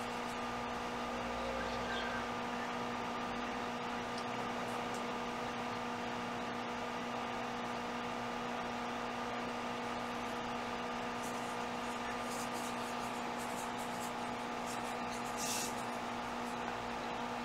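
Steady background hum and hiss with several constant tones, like a computer fan or mains hum picked up by the microphone. A few faint ticks sound through it, and a short burst of hiss comes about fifteen seconds in.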